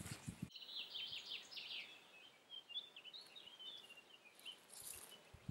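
Songbirds chirping and trilling faintly in short, repeated phrases, with a brief rustle that cuts off sharply about half a second in.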